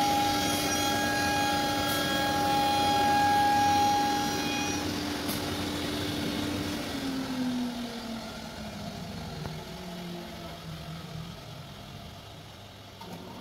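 1325 multi-head CNC router running with a steady high whine and several higher tones that stop about five seconds in. About seven seconds in, the main spindle tone falls steadily in pitch and the machine gets quieter as the spindles wind down after the cut.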